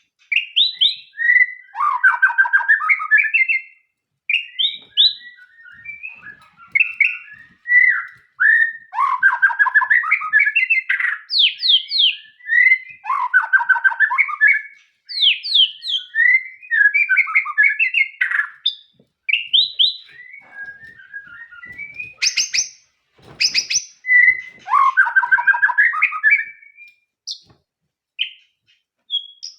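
White-rumped shama (murai batu) singing a long, varied song of whistled phrases, quick rising and falling sweeps and rapid trills, broken by short pauses. A few sharp clicks come about three-quarters of the way through.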